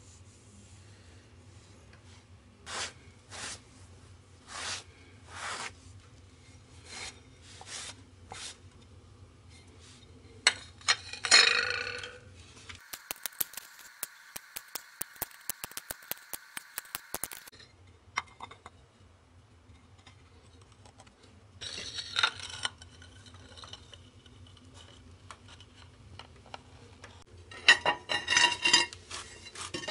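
Ceramic tiles being handled, with short knocks, clinks and scrapes against the tiled step, and for several seconds in the middle a caulking gun squeezing construction adhesive onto the back of a tile with a run of fine clicks.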